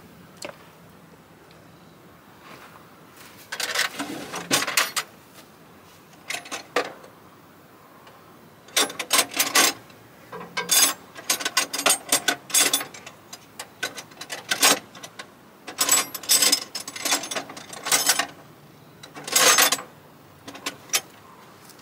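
Bursts of rapid metallic clicking and clinking from a spanner being worked on the fuel pump's fittings, in several runs of a second or a few seconds with pauses between.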